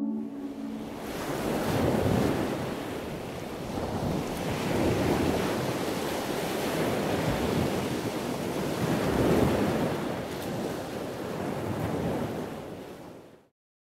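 Sea waves washing in, the rush of surf swelling and easing every few seconds, fading out near the end.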